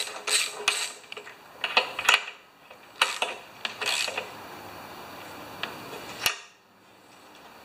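Metal clinks and clicks of a spark plug socket and wrench being fitted and turned as a new spark plug is screwed into a lawn mower engine, with one sharp click about six seconds in.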